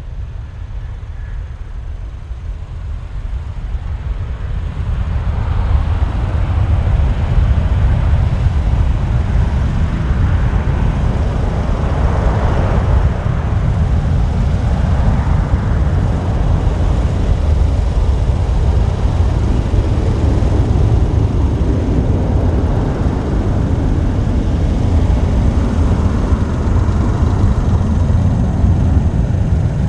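Boeing 737-800's twin CFM56-7B turbofan jet engines at takeoff thrust as the airliner lifts off and climbs away. It is a deep, steady jet rumble that grows louder over the first five or six seconds, then holds.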